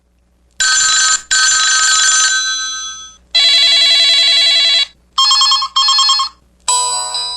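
KTF-X5200 mobile phone's built-in ring and alert tones, played one after another. A short electronic ring is followed by a longer one that fades out, then a steady buzzy tone and two short beeps. A melody ringtone starts near the end.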